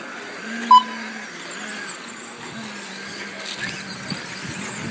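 Radio-controlled stadium trucks racing on a dirt track: a steady mix of small-motor whine and tyre noise, with a short, loud, high beep just under a second in.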